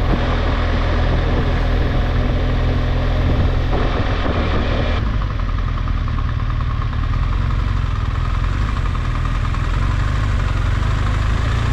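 A car's engine running, with road and cabin noise, heard from inside the car. There are steady low engine tones throughout, and the higher rushing noise eases off about five seconds in.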